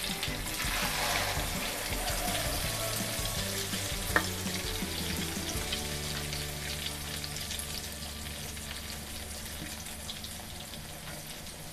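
Canned-fish omelette deep-frying in oil in a wok, sizzling steadily. It is flipped with a spatula near the start, and the sizzle is loudest just after. A single sharp click comes about four seconds in.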